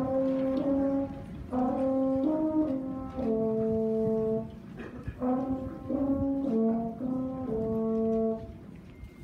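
French horn played solo, unaccompanied: two phrases of sustained notes, each ending on a longer held note, with a short breath of about half a second between them.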